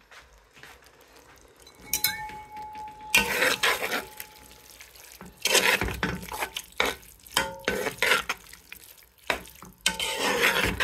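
Rice noodles with prawns and vegetables stirred and tossed in a pan with a utensil, scraping and clattering against the pan in irregular bursts from about two seconds in.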